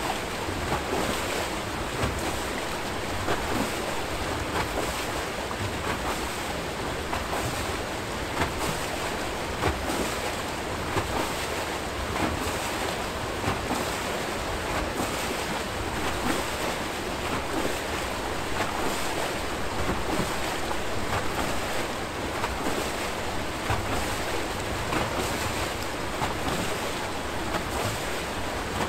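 Archimedes screw hydro turbine turning, its discharging water rushing and churning into the river as a steady roar with small, irregular splashing surges.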